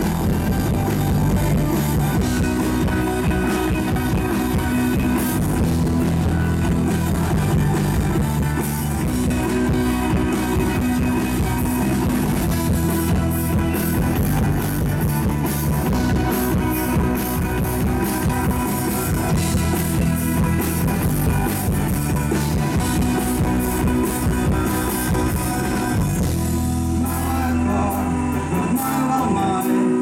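Live rock band playing through a stage PA: electric guitars, bass, drums and an electric violin. Near the end the bass and drums drop away for a moment.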